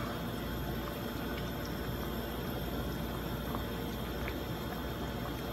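Thick coconut-milk chicken curry simmering in a wok over a gas flame: a steady low bubbling with a few faint pops.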